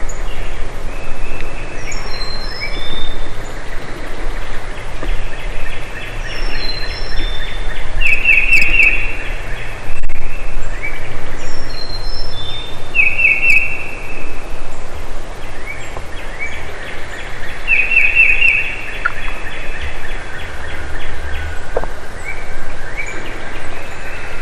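Songbirds singing in woodland: one song with high falling notes and a quick trill repeats about every five seconds, over a steady low background rumble.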